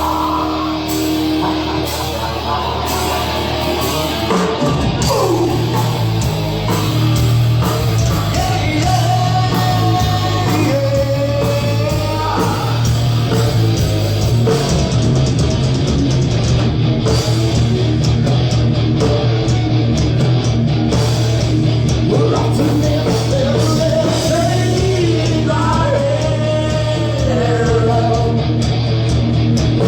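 A live rock band playing heavy metal, with guitar and a singer over the band. The full band comes in heavier with a strong low end about four seconds in.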